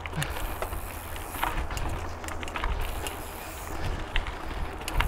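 Mountain bike riding on a dirt trail: steady wind rumble on the camera's microphone, with tyre noise and scattered clicks and rattles from the bike.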